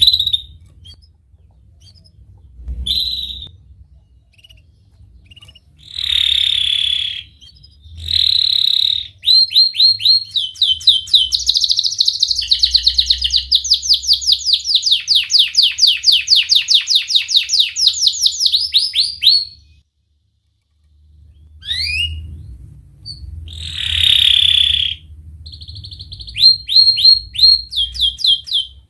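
Domestic canary singing: a few short sharp calls and buzzy notes, then a long, fast trill of rapidly repeated notes lasting about ten seconds. After a short pause come rising whistled sweeps, another buzzy note and more quick trills near the end.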